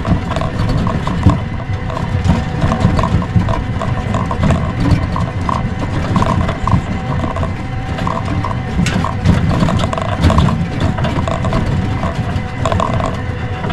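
Kuba GL 1800 MAX motor tricycle's engine running at a steady pitch under load, pulling up a steep dirt hill in low range at a constant speed. Frequent knocks and rattles from the machine jolting over the rough track.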